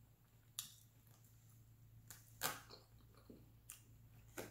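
Faint eating sounds: a handful of short, scattered mouth clicks and smacks while chewing, the loudest about two and a half seconds in, over a faint low hum.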